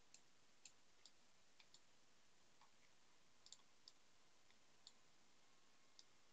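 Faint, irregularly spaced clicks of a computer mouse, about ten in all, over near-silent room tone.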